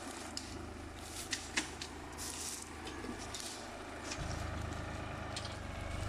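Diesel farm tractor engine running at a steady low throb as it pulls a loaded firewood trailer over a rough forest track, with scattered sharp cracks and clicks. The engine grows louder about four seconds in.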